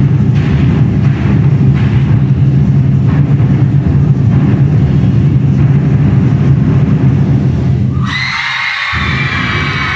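An ensemble of Twenty-Four Festive Drums (large Chinese barrel drums) playing a loud, fast, continuous roll that stops sharply about eight seconds in. High-pitched shouting and cheering follows the stop.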